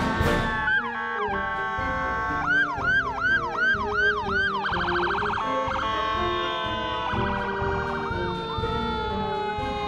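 Emergency-vehicle sirens of a police cruiser and a fire engine sounding together: rapid yelp sweeps, about three a second, and two short bursts of a much faster warble, about five and seven seconds in, over a long wail sliding slowly down in pitch.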